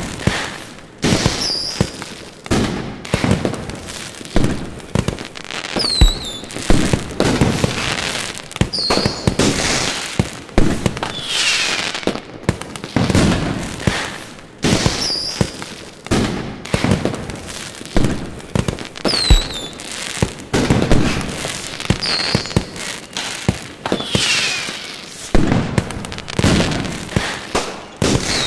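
Fireworks display: a continuous barrage of shell bursts and bangs, several a second, with short high whistles falling in pitch every few seconds.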